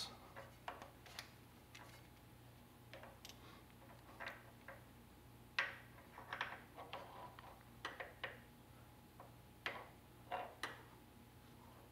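Metal parts of an offset press's ink fountain drive linkage being fitted by hand, a bushing and link arm worked onto a shaft, giving scattered faint clicks and taps at irregular intervals. A faint low hum runs underneath.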